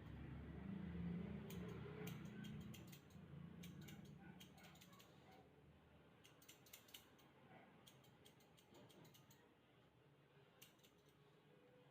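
Faint runs of quick, sharp clicks in short bursts every second or two: grooming scissors snipping through the dog's coat.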